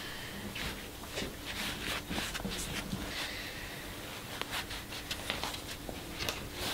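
Soft, irregular scuffs and rustles of a bare foot sliding over carpet and into felt slippers.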